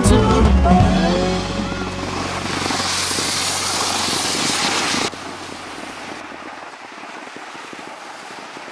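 The last notes of a blues song die away in the first second or so. Then comes a steady rushing hiss of sliding over packed snow, with wind on the microphone. The hiss cuts abruptly to a fainter hiss about five seconds in.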